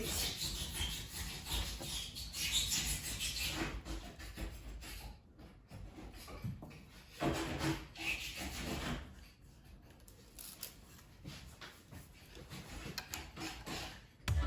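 Faint, intermittent rubbing and scraping on wood as a new drawer front is handled and measured against the old one used as a template.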